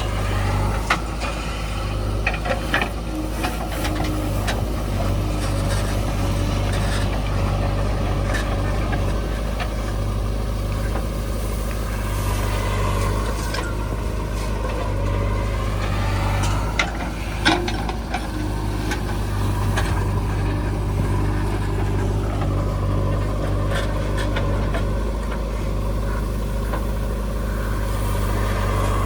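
Diesel engine of a JCB 3DX backhoe loader running under load, its pitch rising and falling slowly several times as the operator works the hydraulics, with a few sharp knocks, the loudest about 17 seconds in.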